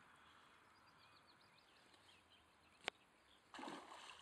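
Faint birdsong, then a single sharp click, then near the end a short splash as a pike strikes a topwater lure at the surface.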